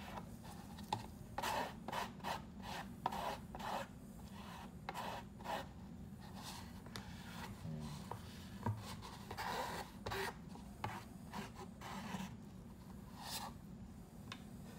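Spatula scraping and rubbing across a paper plate while mixing thick Hysol EA 9460 two-part epoxy, in irregular strokes, several a second, in short bunches. A steady low hum runs underneath.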